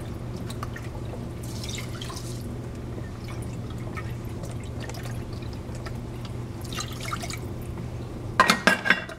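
Chicken stock pouring from a carton into a metal measuring cup and into a Dutch oven of rice: a quiet trickling and splashing of liquid. Near the end come a few sharp knocks, the loudest sounds here.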